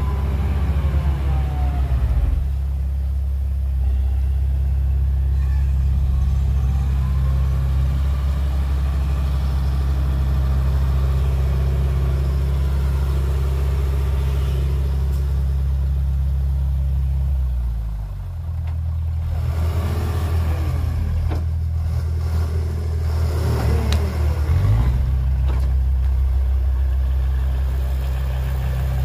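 Heavy diesel engine of earthmoving machinery running steadily. Its pitch drops about two-thirds of the way through and rises back a few seconds later.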